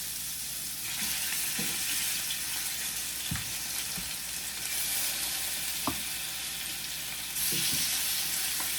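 Marinated chicken pieces frying in hot oil in a pan, a steady sizzle with a few light knocks. The sizzle gets louder about seven and a half seconds in.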